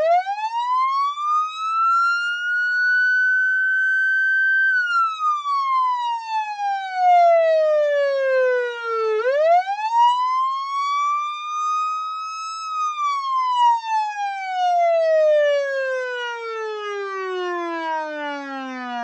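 Police car siren wailing: the pitch rises quickly, holds high, then falls slowly, twice over, the second fall sinking low as the siren winds down near the end. It is the timer's alarm sounding at zero.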